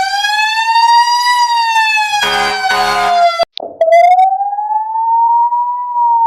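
Fire truck siren sound effect: one slow wail that rises and falls in pitch, with two short blasts over it a little past two seconds in. It cuts off abruptly about three and a half seconds in, and a purer-toned version of the same slow wail starts at once.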